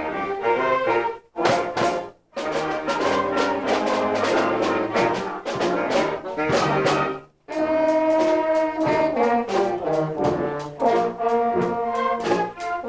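School band playing, brass instruments to the fore, in held notes that stop briefly three times.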